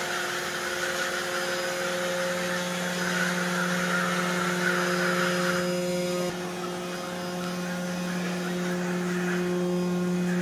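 Steady electric hum and whirr of a four-wheel independent steering robot platform driving on a concrete floor. The hum is several even tones over a hiss, and it dips and changes slightly about six seconds in.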